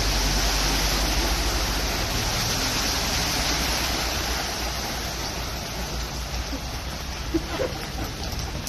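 Cars driving through deep floodwater on a street, their tyres pushing through the water and throwing spray in a steady rushing splash that eases a little toward the end. Two brief sharp sounds come about seven and a half seconds in.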